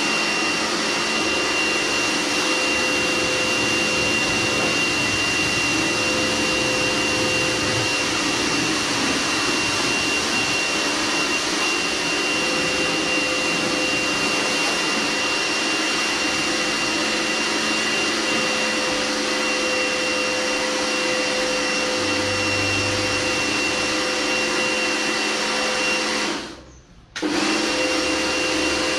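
Karcher electric pressure washer running steadily, its motor whining over the hiss of the water jet. About 26 seconds in it cuts out for under a second, then starts up again.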